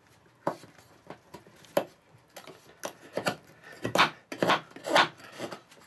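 Knife blade of M390 steel shaving a dry wooden block: a series of short scraping cuts, coming closer together and louder about four to five seconds in.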